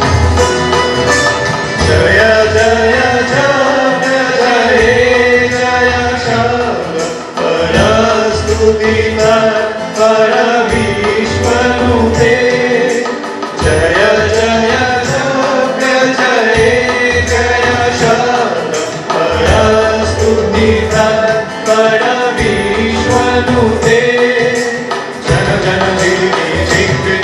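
A group of male voices singing a Bengali devotional hymn to Durga together, backed by keyboard, guitar and heavy percussion beats.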